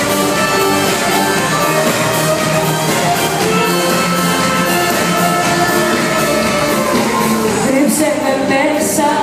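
Live Greek pop band playing loudly in a large club hall, with a woman singing over it.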